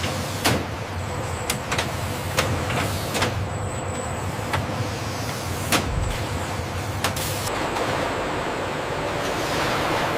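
Industrial processing-line machinery: a steady hiss and low hum with irregular sharp metallic clanks and clicks, the hiss swelling near the end.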